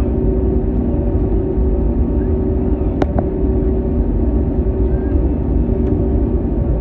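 Steady low rumble and hum inside the cabin of an Airbus A321neo taxiing on its Pratt & Whitney geared turbofan engines, with a single sharp click about three seconds in.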